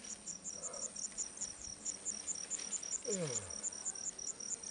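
Crickets chirping at night in a steady, high pulsing, about six pulses a second. About three seconds in, a man makes a short vocal sound that slides down in pitch.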